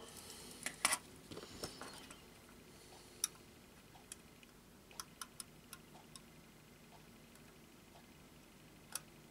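Faint handling noise from a small screwdriver and fingertips working a coupling plate into place on the underside of a plastic model wagon: a short rustle with a few clicks in the first two seconds, then scattered light ticks.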